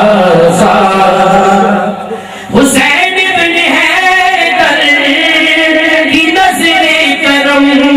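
Voices singing an Urdu devotional chant in chorus, with long held notes. The singing dips briefly about two seconds in and comes back in loudly.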